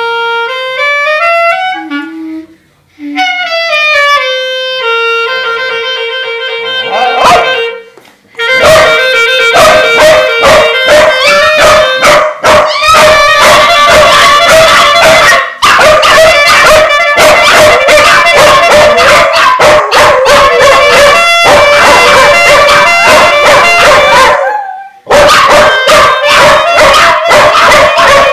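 A clarinet steps up through a few notes twice, then holds one long low note. About eight seconds in, dogs break into loud, rapid, continuous yipping and barking over a held clarinet note, pausing briefly twice.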